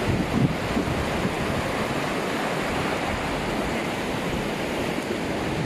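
Floodwater rushing through a swollen river in spate: a steady, even wash of churning white water.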